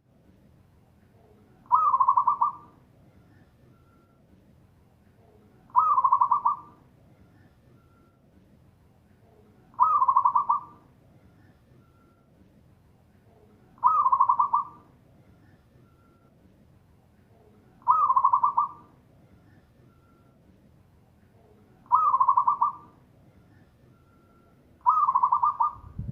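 Zebra dove (perkutut) singing its cooing song: seven loud calls about four seconds apart, each about a second long, opening with a quick rising note and running into a rapid string of coos.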